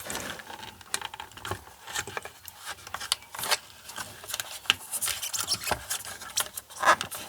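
Irregular small clicks, taps and scraping from the small pump motor and its air tubing being handled and fitted back inside the opened casing of a blood pressure monitor.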